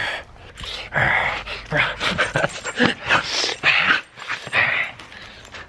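Husky vocalizing excitedly during rough play: a fast string of short, breathy calls that starts about a second in.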